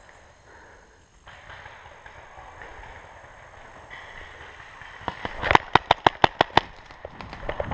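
Paintball marker firing a rapid string of about ten shots in under two seconds, a little past halfway, with a few fainter shots near the end.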